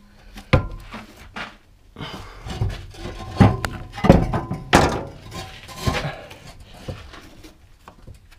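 Steel exhaust muffler knocking and clunking against the car's underbody as it is worked up into its rubber hangers: a string of irregular knocks, some with a short metallic ring.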